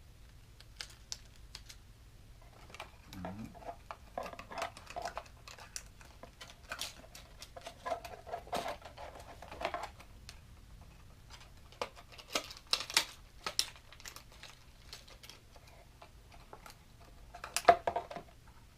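Plastic lure packaging and a hard-bodied square-bill crankbait being handled as the lure is pushed back into its package: irregular plastic clicks, taps and crinkling, with the sharpest cluster of clicks near the end.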